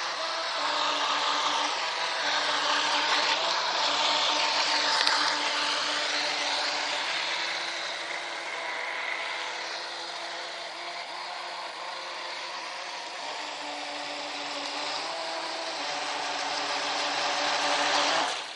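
Radio-controlled speedboat's motor running flat out, a steady whine. It is loudest about five seconds in, fainter in the middle as the boat runs far out on the water, and growing again near the end as it heads back.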